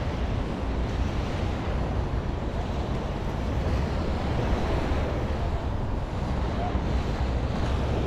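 Wind buffeting the camera microphone in a steady low rumble, over the even wash of small waves breaking on a sandy beach.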